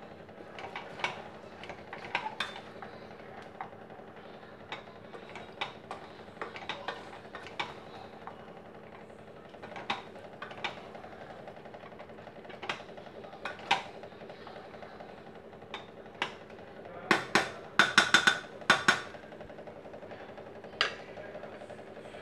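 Wooden spatula stirring rice and prawns in a metal pressure cooker, knocking and scraping against the pot in scattered clicks, with a quick run of louder knocks about three-quarters of the way through. A steady low hum runs underneath.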